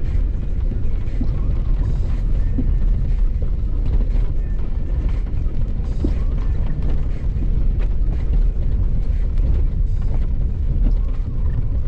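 Steady low rumble of an off-road vehicle driving over a rough dirt trail, heard from inside the cab, with scattered knocks and rattles from the bumps.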